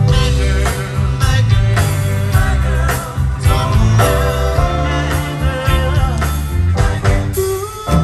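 Live pop-soul band with vocal harmony singers performing a Motown song through a concert PA: singing over bass, drums and guitar.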